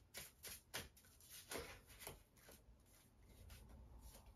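A deck of tarot cards being shuffled and handled by hand: several faint, quick flicks and rustles of the cards in the first two and a half seconds, then softer handling.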